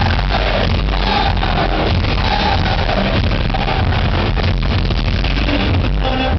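Loud live concert music over a PA system, with a heavy, steady bass beat.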